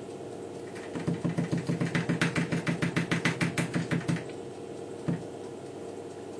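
Emco F1 milling machine axis being inched toward a 1 mm slip gauge in small steps. It gives a quick run of even clicks, about six a second, over a low hum for some three seconds, then one more click.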